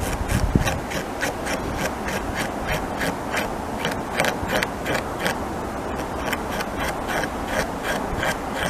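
North American beaver gnawing into a tree trunk, its incisors scraping out wood in a quick, even run of short bites, several a second. A low thump about half a second in.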